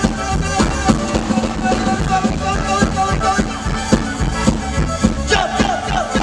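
Lively accordion music with a steady beat of about two strokes a second, played for dancing.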